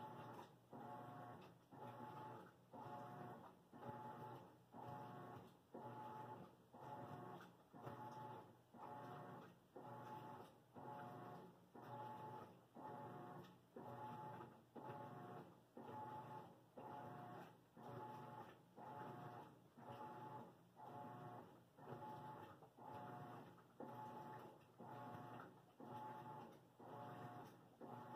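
Faint washing machine running, with a regular machine pulse about four times every three seconds, each stroke a whine that builds and then cuts off.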